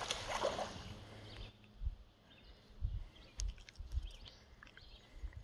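A hooked channel catfish splashing at the surface for about the first second and a half. After that it is mostly quiet, with scattered soft low knocks and a few faint ticks.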